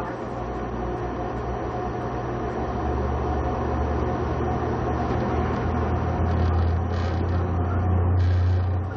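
Human centrifuge spinning up, heard from inside the gondola: a steady low rumble that grows louder as the G load builds from about 1.2 to 2 G. Two short hisses come near the end.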